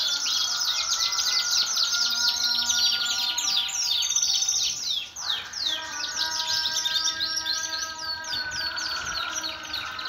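A flock of Shirazi canaries singing together: many overlapping rapid trills and chirps, with long held notes under them, and a fresh set of held notes joining about halfway through.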